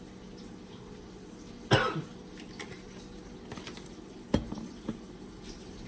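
Kitchen handling sounds as seasoning shakers are worked over a glass bowl of chopped cabbage: a loud sharp knock about a second and a half in, and a smaller one about four seconds in, over a steady low hum.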